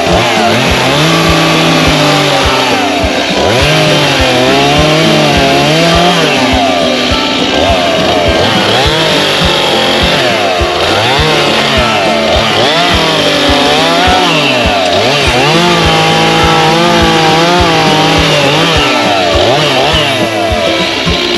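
Chainsaw engine running loudly, its pitch rising and falling over and over every second or two as the throttle is worked.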